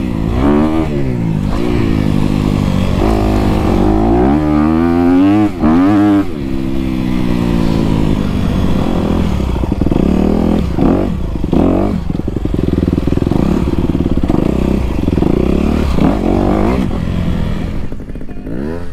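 Trials motorcycle engine heard close up from the rider's helmet, revving up and down with repeated throttle blips for the first several seconds, then running on more steadily at part throttle as the bike picks its way along a rocky dirt trail.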